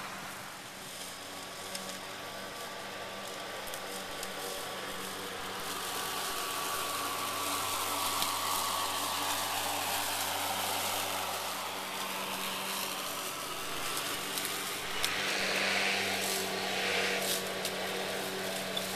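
Greenworks 80-volt cordless self-propelled lawn mower running, its electric motor giving a steady hum over the noise of the blade cutting tall grass.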